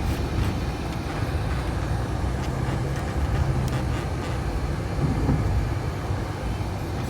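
Car driving on a rough, bumpy unpaved road, heard from inside the cabin: a steady low rumble of engine and tyres with a few light knocks and rattles.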